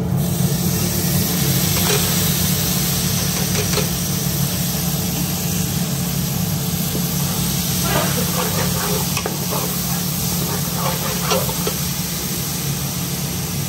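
Drained rice frying in hot oil in an aluminium pot, sizzling steadily, with a metal spoon scraping and clinking against the pot as it is stirred in the second half; a steady low hum runs underneath.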